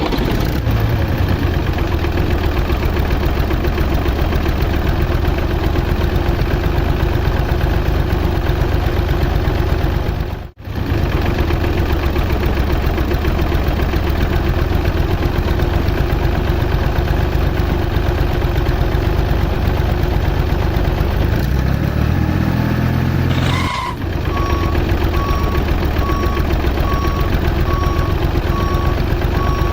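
Tractor engine running steadily, cutting out for a moment about ten seconds in and rising near the end. Then an evenly repeating reversing-alarm beep starts, about one beep a second.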